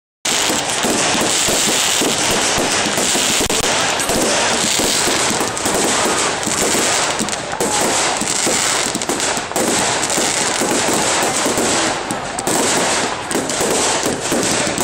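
Fireworks display at its height: a dense, continuous barrage of crackling and rapid bangs from many fireworks at once, starting suddenly just after the start.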